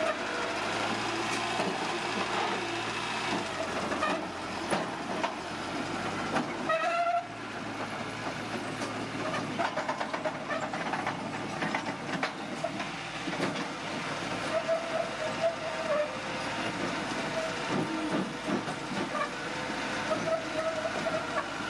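Bulldozer at work: the diesel engine running under a steady hum, with the steel crawler tracks clanking continuously and giving short squeals a few times.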